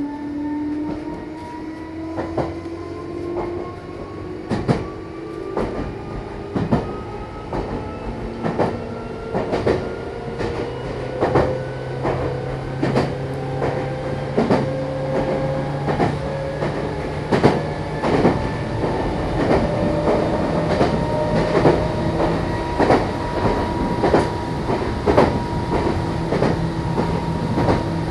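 Meitetsu Bisai Line electric train heard from inside the car as it pulls away and gathers speed. The motor whine rises in pitch and levels off partway through, and the wheels click over rail joints, the clicks coming faster as the train speeds up.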